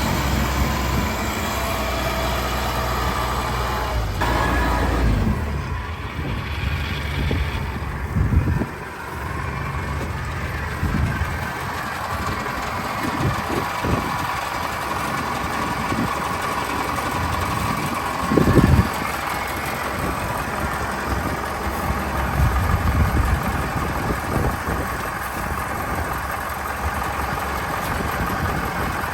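Engine of rice-harvest field machinery running, with a steady low hum that turns rougher about five seconds in. Two louder low thumps come later, one about a third of the way in and a bigger one near the middle.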